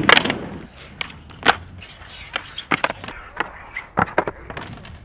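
A trick board being popped and landed: an irregular string of a dozen or so sharp clacks.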